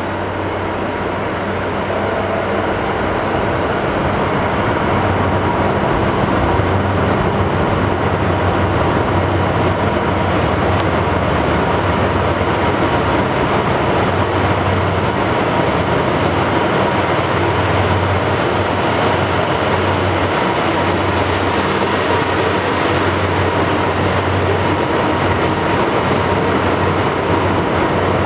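A diesel locomotive, of the red-and-grey JR Freight DF200 type, hauling a passenger train slowly past along a station track. Its engine drone and the rolling of the wheels on the rails run steadily, growing a little louder over the first few seconds.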